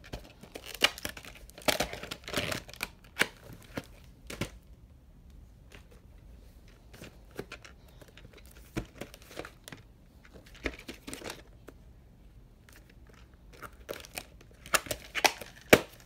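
Hands handling a plastic clamshell VHS case and its cassette: irregular clicks, taps and rustles of plastic. The noises are busiest in the first few seconds and again near the end, with only scattered clicks in between.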